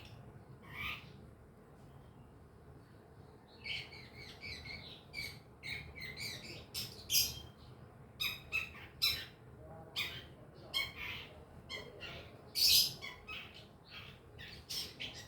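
Long-tailed shrike (cendet) twittering: a brief pause, then a fast, busy run of short chirps and harsh scratchy notes. It is the bird's soft chattering practice song (ngriwik), made while it is learning its song.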